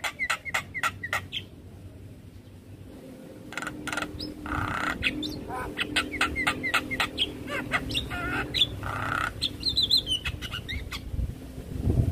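Javan myna (jalak kebo) calling in a rapid, varied stream of sharp clicks, short chirping whistles and harsh rasping notes, breaking off for about two seconds after the first second and a half before resuming. A low thump sounds right at the end.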